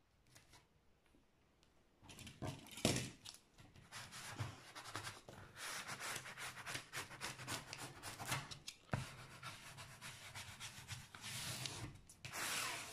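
White plastic spatula rubbed back and forth over the protective film of a diamond-painting canvas to smooth it flat: a steady run of quick scraping strokes that starts about two seconds in.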